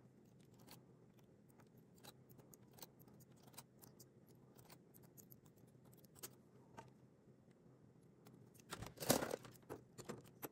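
Faint small metallic clicks and ticks of a hand transfer tool against the knitting machine's needles as stitches are bound off by hand, with a brief louder clatter about nine seconds in.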